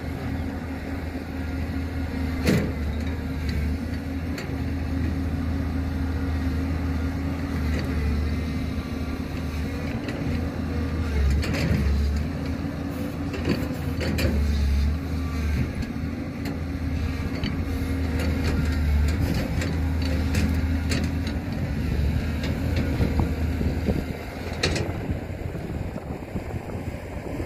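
Heavy diesel engine of earthmoving machinery running steadily, swelling and easing a few times as if under changing load, with occasional sharp metallic knocks.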